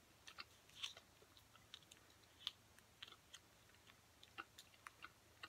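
Faint, irregular clicks of a mouth chewing a soft gummy red licorice candy, scattered over otherwise near silence.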